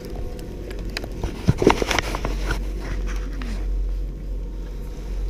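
Skis sliding over packed snow with a steady low rumble of wind on the microphone, and a few sharp clacks about a second and a half to two seconds in.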